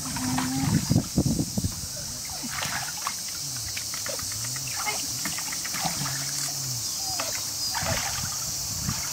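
Pool water splashing and sloshing as Weimaraner puppies paddle and clamber about in a shallow above-ground pool, with the loudest splashes in the first second and a half.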